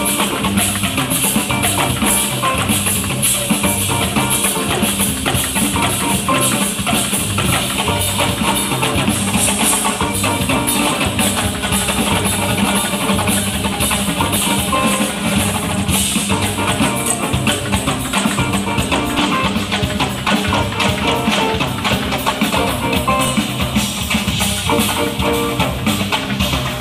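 Live jazz band playing, with drum kit and hand percussion keeping a steady rhythm over double bass, guitar and keyboard, heard from among the audience.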